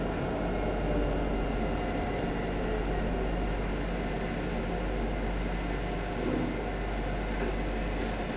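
Alstom Citadis 302 tram running, heard inside the passenger saloon: a steady low rumble of wheels on rail with a hum from the traction equipment.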